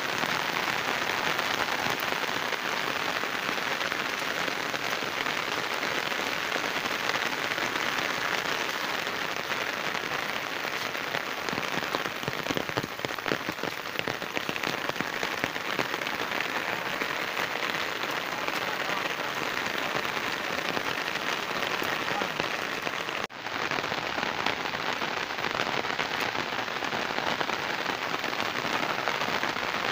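Steady monsoon rain pouring down on fields, a muddy lane and a pond, an even hiss of countless drops. It breaks off for an instant about three quarters of the way through.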